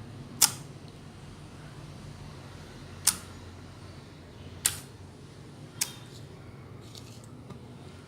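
Thick clear slime being handled, giving off four sharp clicking pops spread a second or more apart, with a fainter pair near the end.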